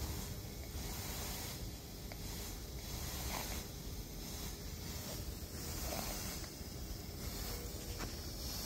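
A soft hiss of air that swells and fades about once a second in a steady breathing rhythm, over a low hum, with a few faint clicks.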